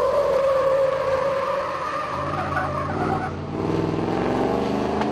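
Roush Ford F-150 pickup drifting: tyres squealing in a steady high tone for the first half, then the engine revving up and down as the truck slides.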